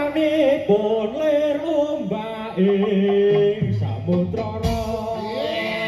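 Live, amplified Javanese music accompanying a jaran kepang horse dance: a wavering, ornamented melody with singing over the ensemble, with a deep bass note coming in about four seconds in.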